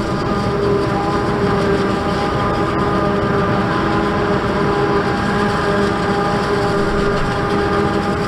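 Claas Jaguar 860 self-propelled forage harvester chopping maize, its engine and chopping drum giving a loud, steady drone with several held tones, alongside the engine of the tractor pulling the trailer it fills.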